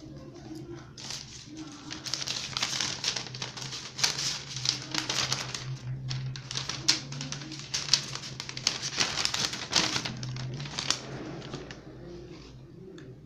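Hands rummaging through shredded-paper packing filler in a cardboard box: dry rustling and crinkling in irregular handfuls with sharp crackles. It starts about a second in and eases off near the end, as a sheet of paper is handled.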